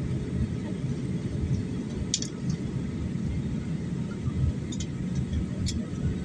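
Steady low rumble of a jet airliner's cabin in flight, engine and airflow noise heard from a window seat, with a faint steady hum and a few faint clicks.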